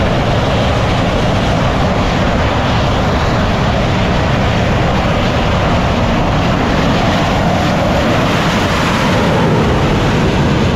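A MiG-29K fighter's twin jet engines at takeoff power, a loud, steady jet noise, as it starts its run down the carrier deck for takeoff.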